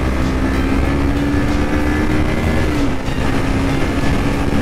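KTM RC 390 single-cylinder engine running at a steady cruise while riding, with heavy wind rush on the helmet mic; the engine note steps down a little about three seconds in.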